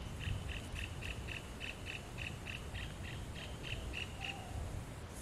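An animal's chirping call, evenly repeated at about four chirps a second, which stops about four seconds in. A steady low rumble runs underneath.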